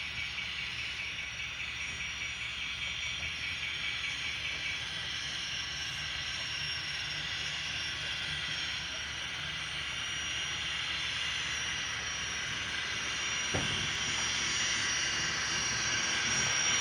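Model gas-turbine locomotive with DCC sound running along the track. Its onboard speaker plays a steady turbine rush and high whine, which slowly grows louder as the locomotive comes back.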